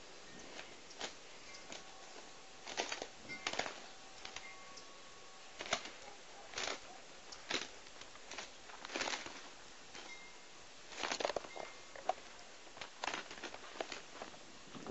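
An Asil gamecock and a bantam rooster fighting: short, scattered bursts of wing flapping and scuffling, about a dozen of them, faint and irregular.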